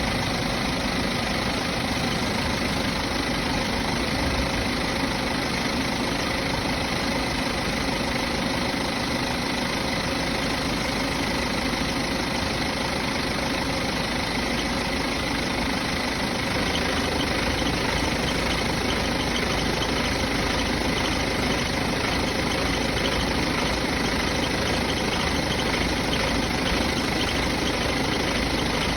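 A vehicle engine idling steadily, warm after being driven for a while; in the second half a deeper low vibration noise joins it, the fault the owner is trying to show.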